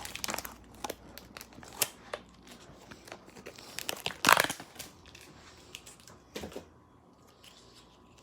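Plastic food packaging crinkling and rustling, with light knocks as items are handled and moved about, loudest about four seconds in and sparser near the end.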